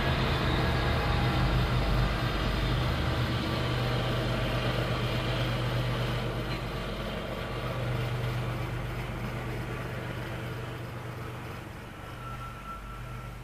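Diesel locomotives of a freight train passing, a steady low engine drone that slowly fades away.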